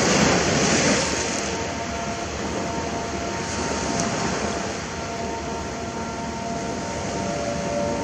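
Sea surf washing onto the shore: a steady rush of waves, swelling as a wave breaks in the first second.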